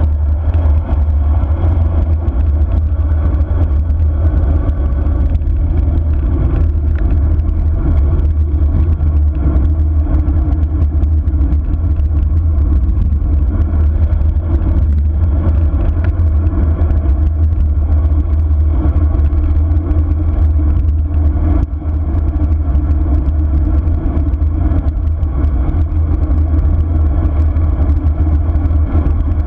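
Wind buffeting an action camera's microphone on a road bike descending at speed: a loud, steady low rumble.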